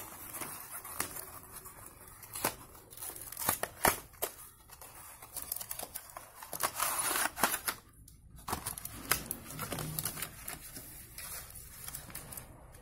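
Cardboard box and plastic packaging of a phone charger handled by hand: scattered clicks and taps, with a longer rustling scrape about seven seconds in as the inner tray slides out of the box.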